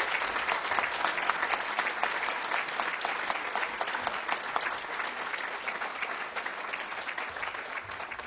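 Audience applauding, many hands clapping at once, slowly dying down toward the end.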